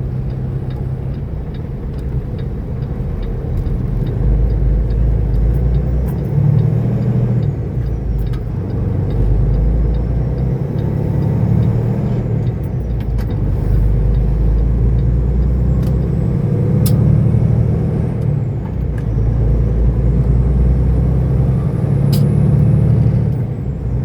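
Semi-truck engine running, heard inside the cab as a loud, uneven low rumble that grows louder a few seconds in.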